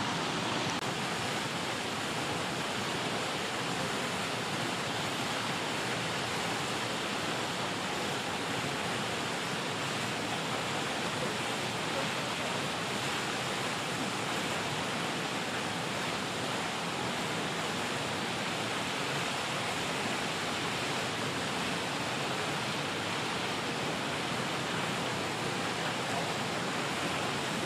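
A steady, unchanging rushing noise with no distinct events.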